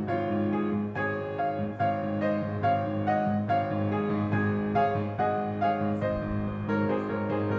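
Instrumental church music on piano: a steady flow of struck notes over sustained low bass notes.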